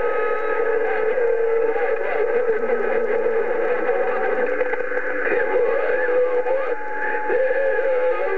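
CB radio receiver on 27.025 MHz with the channel open to long-distance skip: steady static and hiss with several overlapping whistling heterodyne tones that waver in pitch, and faint garbled distant transmissions underneath.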